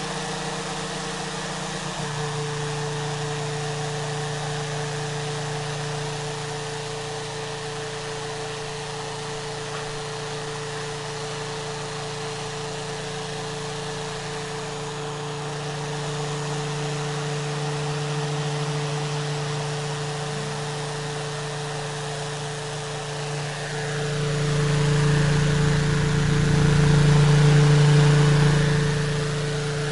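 A small motor running with a steady hum, growing louder for a few seconds near the end.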